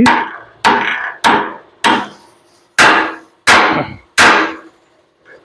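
Steel hammer striking a Ford Cargo 1721 front steering knuckle, seven metallic ringing blows about two thirds of a second apart with a short pause after the fourth. The blows drive the knuckle's roller thrust bearing, which carries the truck's weight, into its working position on the axle beam.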